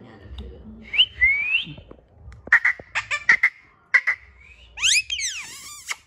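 Indian ringneck parakeet whistling and chirping: a rising whistle about a second in, a quick run of short sharp chirps in the middle, then near the end a loud series of swooping whistles that dive down and climb back up.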